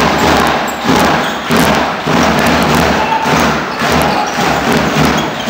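Loud crowd noise in a basketball hall, with repeated dull thumps about twice a second.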